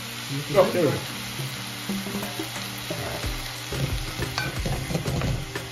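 Shell-on shrimp sizzling in hot olive oil in a Dutch pot, stirred with a wooden spoon that scrapes and knocks against the pot, more busily in the second half.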